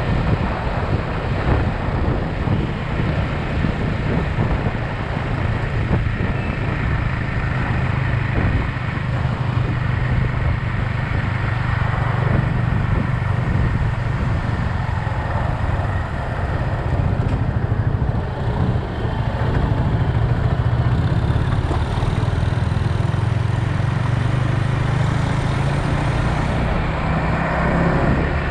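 Yamaha XSR 155's single-cylinder engine running steadily under way, mixed with wind and road noise on the action-camera microphone.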